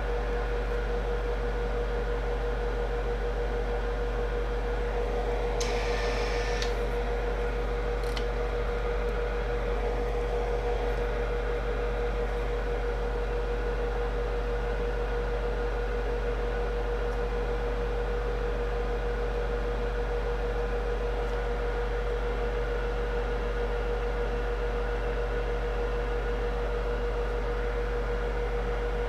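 Steady electrical hum with one constant mid-pitched tone over a low drone, from the bench equipment running during microscope soldering. A brief hiss comes about six seconds in, and a short click about two seconds later.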